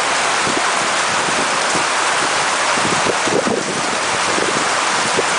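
Storm of heavy rain and strong wind: a steady, loud rush of rain pouring onto flooded pavement, with wind buffeting the microphone and sea surf breaking under it.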